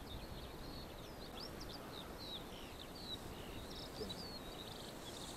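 Faint twittering of small songbirds: many quick high chirps and short slurred notes in a continuous run, over a low steady background rumble.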